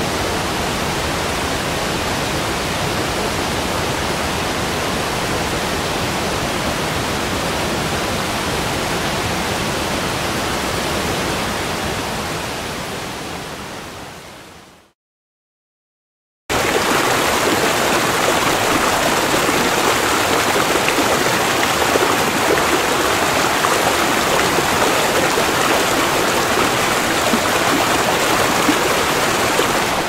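Two recordings of steady rushing water. The first fades out about halfway through, and after a second or two of silence a second, slightly louder one starts abruptly.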